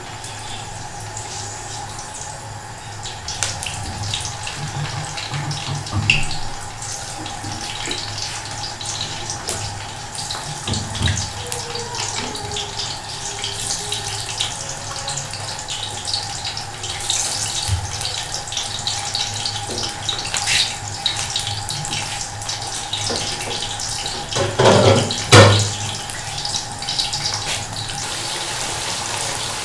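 Stuffed bitter gourds deep-frying in hot oil in an aluminium karahi: a steady sizzling hiss with fine crackles. A couple of loud knocks come near the end.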